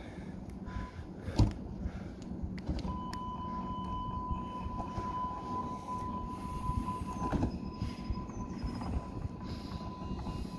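Hamburg U-Bahn DT5 train standing at the platform, humming, with a knock about a second and a half in. A steady door-closing warning tone then sounds for about four and a half seconds while the sliding doors close, and ends with a click as they shut.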